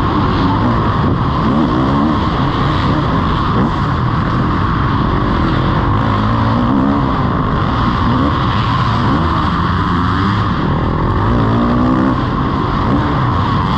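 Kawasaki KX450 single-cylinder four-stroke motocross engine racing, its pitch rising and falling again and again as the rider opens and closes the throttle through the turns and straights.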